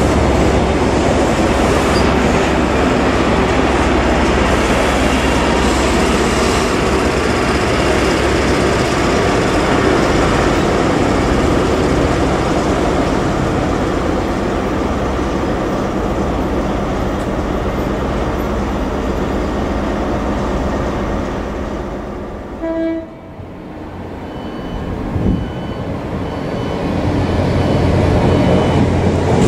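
A First Great Western High Speed Train runs through. Its coaches rumble and clatter over the rails and the rear diesel power car drones as it draws away, the sound dying down about 22 seconds in. After that a second train, a GWR Class 800 unit, approaches, its rumble growing louder toward the end.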